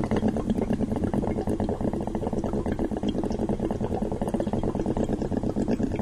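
Water bubbling in a bong as smoke is drawn through it: a steady, rapid gurgling.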